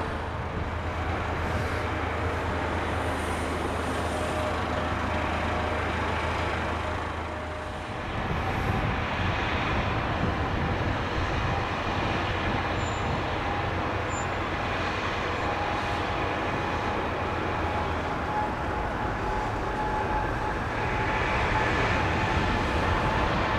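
Jet engines of a Boeing 777-200LR (GE90 turbofans) running steadily, a continuous rushing hum with a faint thin whine, dipping briefly about a third of the way in and growing a little louder near the end.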